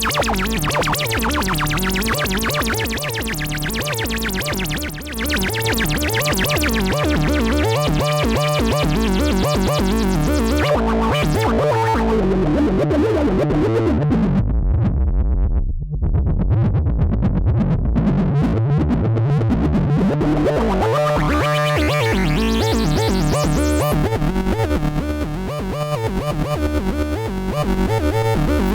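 Dreadbox Hades analog bass synthesizer playing a repeating run of notes. About halfway through its filter closes down to a dark, muffled tone, then sweeps back open so the sound grows bright again.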